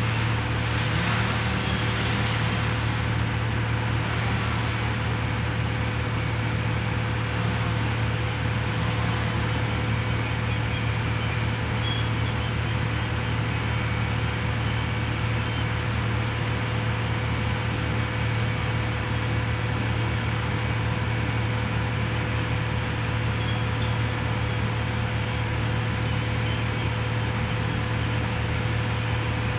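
Steady low mechanical hum with a faint steady tone above it, unchanging throughout; a few faint, short high chirps now and then.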